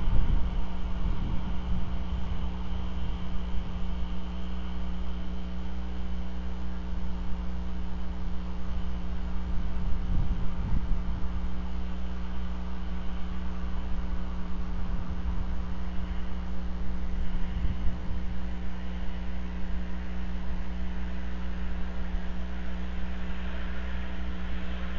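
Steady low mechanical hum and rumble with a light hiss, unchanging and without any distinct calls or knocks.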